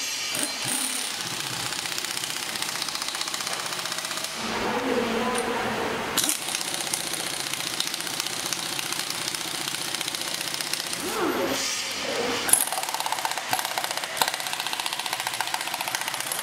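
Impact wrench hammering rapidly as it runs down the handlebar clamp bolts on a 70cc motorcycle's top fork clamp, with a break of about two seconds about four seconds in.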